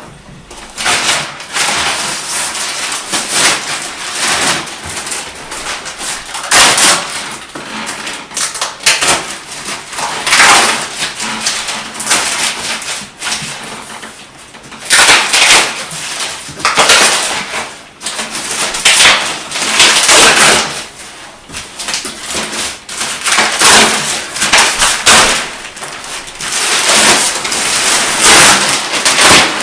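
Loud, irregular rustling and crinkling of mattress packaging, a vacuum-sealed plastic wrap and its box being handled, coming in bursts of a second or two.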